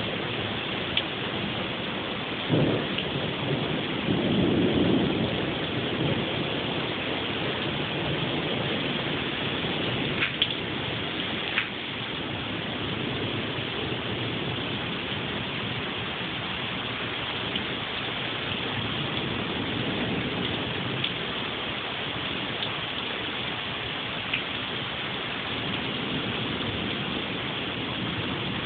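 Heavy rain falling steadily, with a sharp crack about two and a half seconds in followed by a low rumble of thunder. A few sharp ticks stand out around ten and twelve seconds in.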